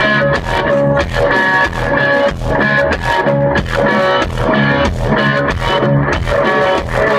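Loud music with guitar and a steady beat over heavy low bass.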